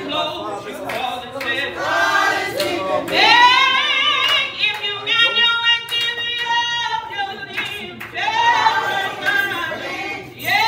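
A church choir and congregation singing a gospel song together, with hands clapping along. About halfway through, the voices hold one long note.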